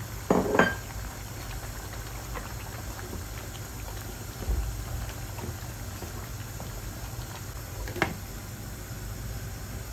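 Chicken simmering in broth in a large aluminium pot, a steady bubbling under a low hum. Twice, about half a second in, a wooden spoon knocks against the pot with a short metallic ring, and near the end there is one sharp clink.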